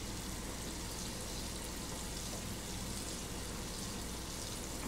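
Chopped garlic sautéing in melted butter in a nonstick sauté pan: a steady, gentle sizzle with fine crackling as it is stirred with a silicone spatula.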